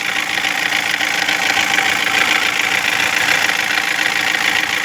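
2016 Toyota Corolla engine running with a steady, rapid knocking noise. The knock persists even though the engine assembly has already been replaced.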